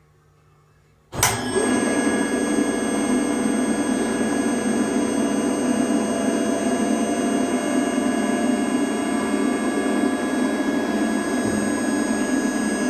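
A bladed machine comes on suddenly about a second in and runs steadily, a loud even noise with several steady whining tones over a low hum. It is an abnormal noise from the bearing at the blade flange.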